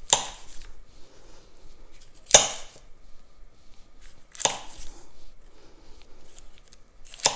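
A kitchen knife slicing a stick of cold butter into pats, the blade coming down with four sharp knocks about two seconds apart, with faint small clicks between them.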